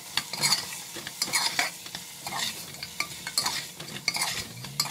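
Slotted metal spoon stirring and scraping mutton chops around a pressure cooker pot in a series of scrapes, over the sizzle of the meat frying in oil.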